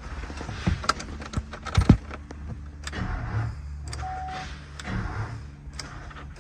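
Keys jangling and clicking at the ignition of a 2007 GMC Sierra 2500 pickup, switched on with the engine not running, with one short electronic beep about four seconds in. A steady low hum runs underneath.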